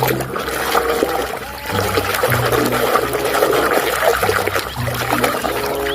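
Water splashing and sloshing steadily as a muddy toy is washed in clean water.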